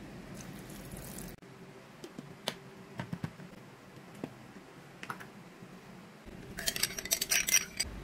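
Small clicks and clinks of kitchen work at a glass blender jar as its plastic lid is set on and pressed down, followed near the end by a short burst of rapid clattering.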